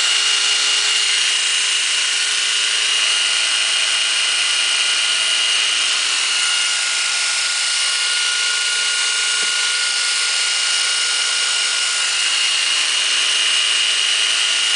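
Baldor 248-153TD 2x48-inch bench belt sander, with a 1.5 horsepower three-phase motor, running steadily: an even hiss with a steady high whine.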